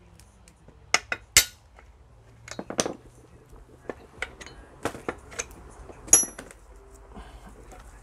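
Hammer blows on a drift knocking the kingpin out of a Citroën 2CV front suspension arm: three sharp strikes about a second in, then lighter metallic clinks and knocks as the loosened pin and steel parts are handled, with one ringing clink about six seconds in.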